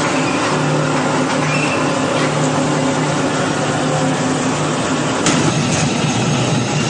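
Sheet-metal roll-forming machine running: a loud, steady mechanical noise with a low hum. There is one sharp click about five seconds in.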